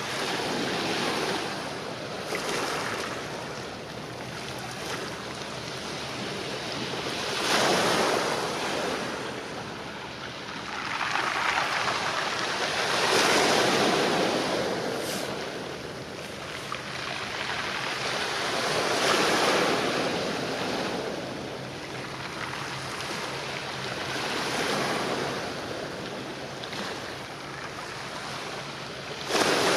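Small waves washing against the shore: a rush of water that swells and fades every few seconds.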